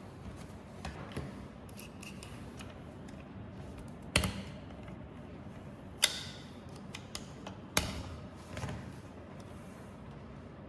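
Small clicks and knocks of parts and tools being handled while a belt sander's rear roller is taken apart, with three sharper knocks about four, six and nearly eight seconds in.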